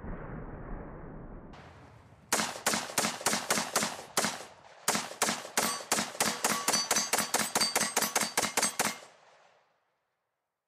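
AR-15 rifle fired rapidly, in two strings of shots at about five a second with a short pause between, after a long fading rumble in the first two seconds.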